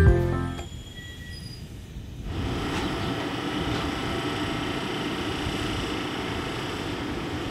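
Electric multiple-unit passenger train running past on the rails: a steady rolling noise of wheels on track, growing louder about two seconds in and then holding even.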